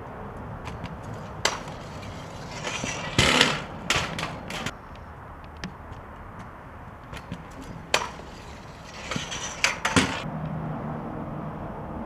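Stunt kick scooter on a concrete sidewalk: sharp clacks and knocks of the deck and wheels hitting the ground, with a short scrape. These come in two bursts about six seconds apart.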